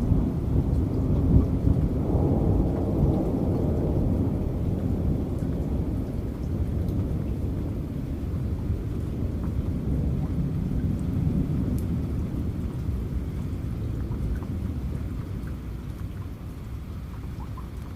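Rolling thunder rumbling over steady rain. It is loudest in the first few seconds and slowly dies away.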